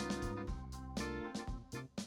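Background music: a smooth, jazzy groove with keyboard and bass, with notes struck in a steady beat.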